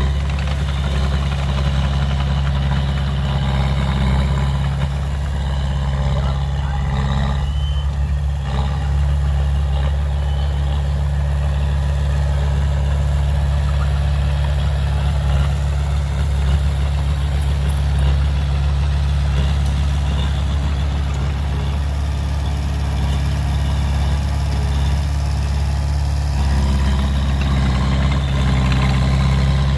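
Heavy diesel earthmoving machinery running steadily with a deep engine drone, easing slightly about eight seconds in and building again near the end.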